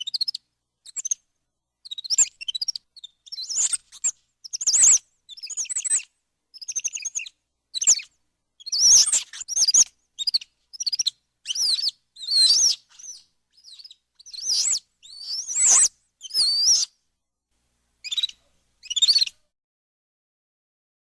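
Capuchin monkey chattering: a string of short, high-pitched squeaky chirps and twitters in uneven bursts.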